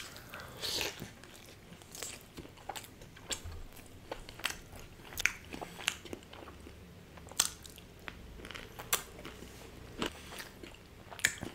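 A person chewing a bite of cheese-burst pizza dipped in paneer makhani gravy, close to the microphone: a steady scatter of short, irregular clicks of the mouth and teeth.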